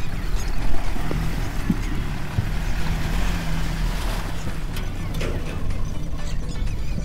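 Maruti Suzuki Gypsy's four-cylinder petrol engine running steadily as the 4x4 drives off through mud, with wind buffeting the microphone.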